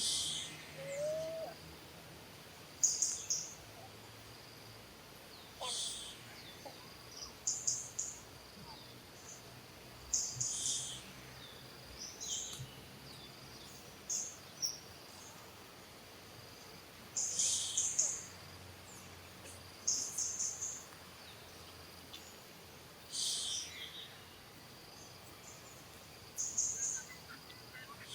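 Short, high-pitched bird chirps repeating every one to three seconds, over a faint steady high insect whine.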